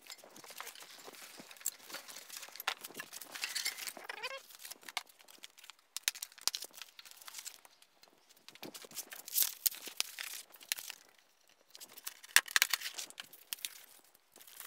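Rustling and crinkling of foam and plastic packaging with scattered clicks and snaps as zip ties and protective wrap are taken off a bike, and a short squeak about four seconds in.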